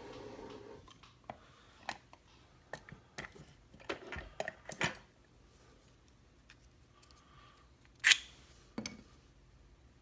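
Small metal clicks and taps from a Mul-T-Lock Garrison lock and its cylinder being handled and locked back up with its key. One sharp, loud click comes about eight seconds in, followed by a smaller one.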